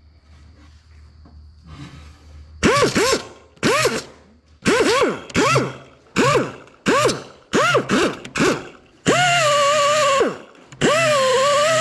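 A grinder is blipped about eight times in quick pulses, each one spinning up and winding back down, then run steadily twice for a couple of seconds with a whine and a hiss, the pitch dipping a little during the second run. This is the grinder used to clean up the rough original welds in a car's engine bay.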